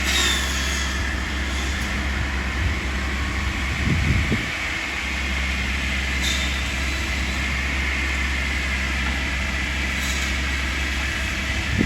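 Tree-trimming skidder running: a steady engine drone with a thin, constant high whine over it. A brief low rumble swells about four seconds in.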